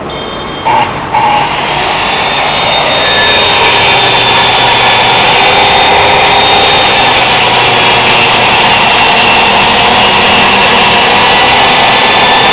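DeWalt corded circular saw running on a particleboard sheet: two short loud blips about a second in, then a steady, loud motor-and-blade whine that builds over the next couple of seconds and holds.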